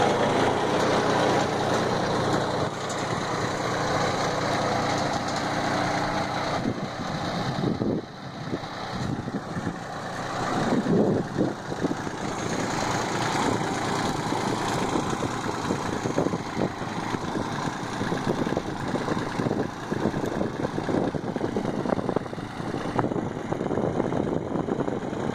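Small 22 hp Mitsubishi diesel tractor engine running steadily as it pulls a tractor-mounted seed planter across tilled soil.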